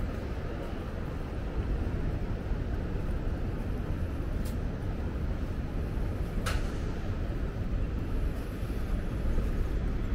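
City street ambience: a steady rumble of road traffic, with two short sharp clicks, one about four and a half seconds in and one about six and a half seconds in.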